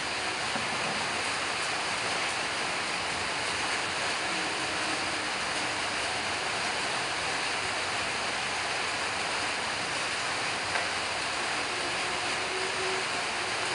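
Steady, even rushing noise with no change in level, and a single faint click about eleven seconds in.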